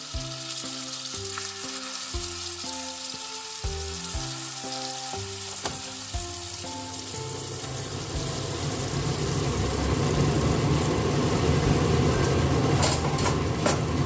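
Rice turon frying in hot oil: a steady sizzle that thickens and grows louder from about halfway through.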